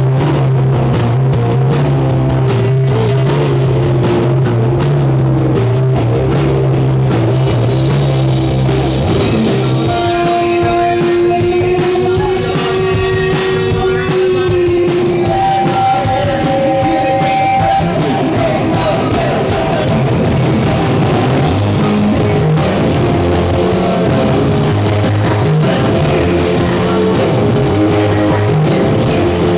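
Rock band playing live: electric guitars, bass and drum kit drive on without a break, with a long held note near the middle.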